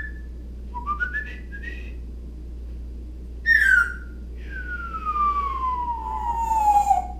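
Pet parrot whistling: three short rising notes, a quick falling chirp, then one long falling whistle, its imitation of a bomb dropping.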